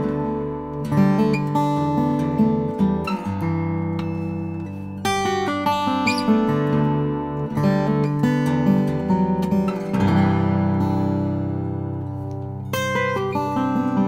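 Nightingale N400F 12-fret acoustic guitar, with a sinker redwood top, exotic ebony back and sides and 80/20 bronze strings, played fingerstyle as a solo melodic piece: picked notes over ringing bass notes. About ten seconds in, a chord is left to ring and slowly fade before the picking starts again near the end.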